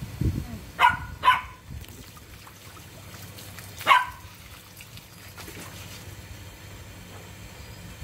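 A dog barking three times: two sharp barks close together about a second in, and a third near four seconds.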